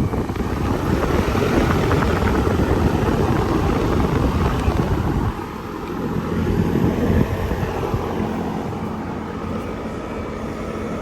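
Outdoor condenser unit of a 5-ton Ruud central air conditioner running just after start-up, its fan sending a loud, steady rush of air, with the noise dropping somewhat about five seconds in.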